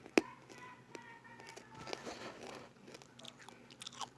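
Handling noises from a piece of wrapped candy: a sharp click just after the start, then small clicks and a short rustle of crinkling wrapper about two seconds in, over faint background music.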